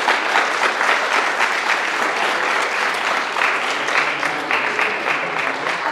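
A group of people applauding, many hands clapping at once at a steady level.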